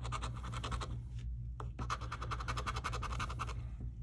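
Scratch-off lottery ticket being scratched with a small round scraper: two runs of quick back-and-forth scraping strokes, the first stopping about a second in, the second starting near the two-second mark and stopping shortly before the end.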